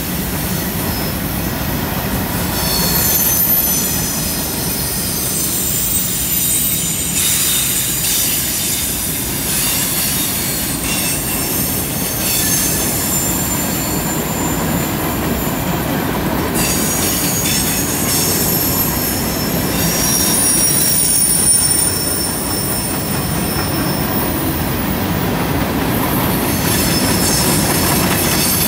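Freight cars rolling past on a curve: a steady rumble of wheels on rail, with high thin wheel squeal that comes and goes in stretches as the wheel flanges grind through the curve.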